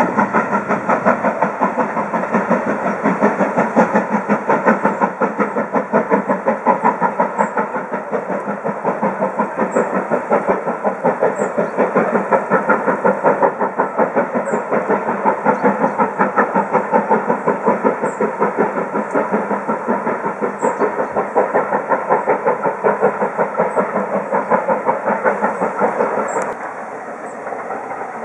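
Steam locomotive hauling a train of coaches, with a steady rhythmic beat and the clatter of coach wheels on the rails. The sound drops suddenly near the end.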